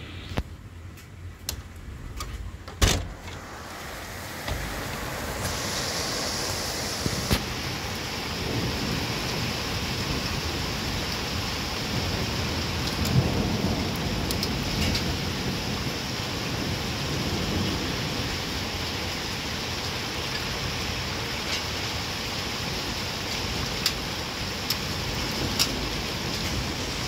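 Rain that starts as scattered drops, with one sharp knock about three seconds in, then quickly builds into a steady downpour. Thunder rumbles low in the middle, and close drips tap now and then.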